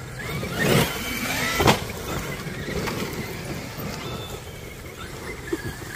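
Traxxas X-Maxx RC monster trucks driven hard, their brushless electric motors whining up and down in pitch. There is a loud burst just under a second in, then a sharp knock a moment later, the loudest sound here.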